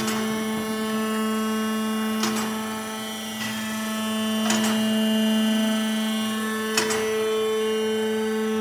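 A steady machine hum with a strong, even pitch, and a short sharp click about every two and a quarter seconds, four times.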